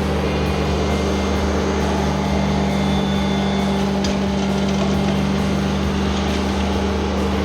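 Mini skid steer's engine running at a steady speed, with a brief click about four seconds in.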